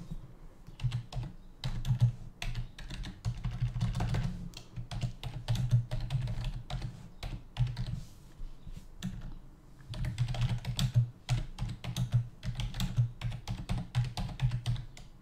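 Typing on a computer keyboard: quick, irregular runs of key clicks and taps, easing off briefly about halfway through.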